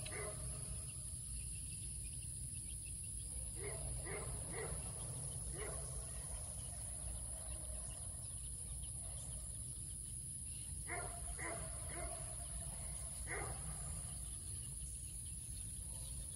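Hen clucking softly to her brood: short single clucks in loose groups of one to three, spaced a few seconds apart. Under them runs a steady high insect drone.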